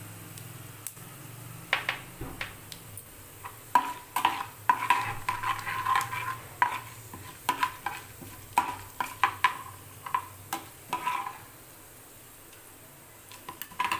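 A steel ladle stirring and scraping in a frying pan in irregular strokes while a tempering of chana dal, urad dal, cumin and dried red chillies sizzles in hot oil. The stirring stops a few seconds before the end, leaving only the quieter sizzle.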